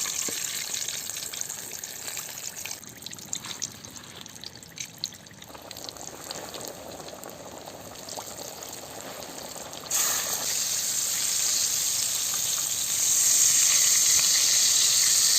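Chicken pieces deep-frying in hot oil: a steady sizzling hiss with scattered crackles. The sizzle grows suddenly louder about ten seconds in.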